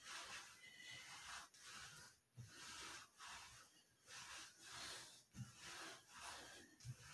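A man breathing hard from the exertion of ab wheel rollouts: faint, hissing breaths about once a second, with a few soft low thumps.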